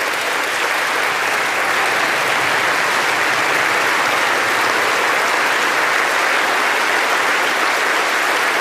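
An audience applauding, a dense steady clapping that holds at full strength.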